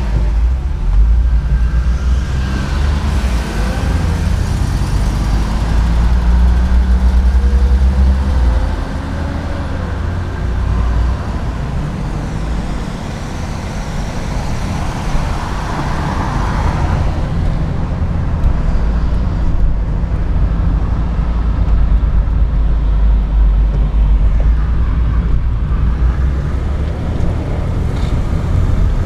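Six-cylinder Chevrolet Omega sedans driving in city traffic, heard from inside one of the cars: a steady, deep engine rumble mixed with tyre and road noise.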